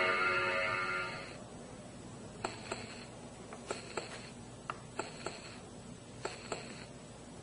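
Heartbeat effect from a small horror sound-effects gadget, playing through its tiny speaker as paired clicks, a pair about every 1.25 s. A pitched, music-like sound fades out in the first second before the beats start.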